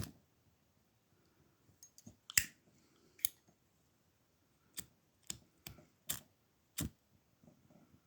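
Zippo lighters being handled: about eight short, sharp metallic clicks, spaced unevenly.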